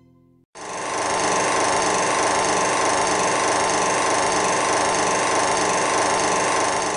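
A loud, steady, harsh buzzing noise starts abruptly about half a second in and holds unchanged.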